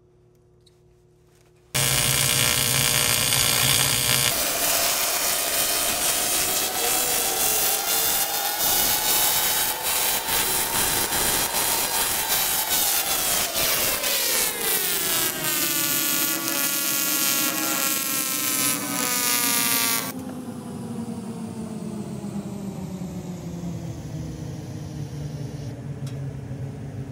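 AC TIG welding arc on an aluminium door handle, buzzing loudly for about eighteen seconds while filler rod is fed in. It starts about two seconds in and cuts off abruptly, leaving a quieter hiss.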